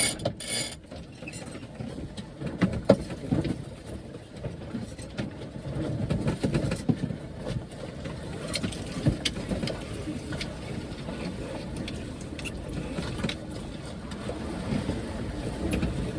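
Sailboat under way with wind and water noise: the slack head sail flapping irregularly, with scattered clicks and knocks from the rigging and sheets as they are handled.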